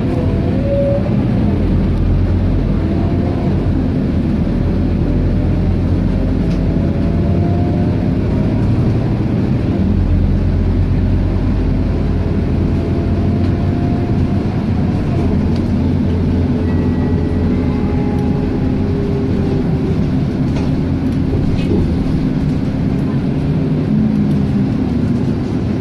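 Scania K230UB city bus heard from inside the passenger cabin: its engine and drivetrain running steadily as it drives, with a faint whine that rises and falls in pitch a few times.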